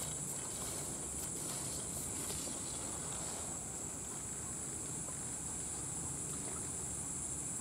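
Insects droning: a steady, high-pitched buzz that does not change.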